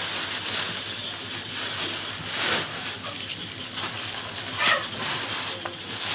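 Garlic cloves being sliced with a small knife over a stone mortar: a few soft cuts over a steady background hiss. A brief rising whine-like sound comes about two-thirds of the way through.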